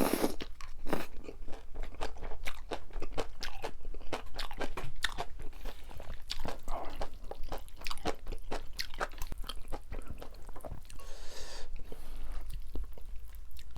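Close-miked chewing of Chapagetti noodles and green-onion kimchi: crunching with many quick wet mouth clicks, and a brief longer rushing sound about eleven seconds in.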